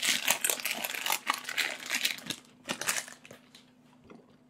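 Plastic popcorn bag crinkling as it is handled, dense at first and thinning into a few scattered crackles, dying away after about three seconds.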